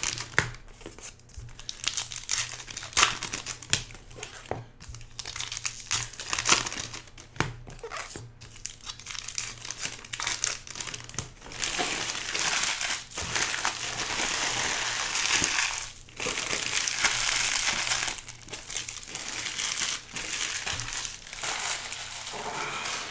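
Plastic trading-card pack wrappers crinkling and crumpling as they are handled. The crackles are scattered at first, then become denser and more continuous for the second half.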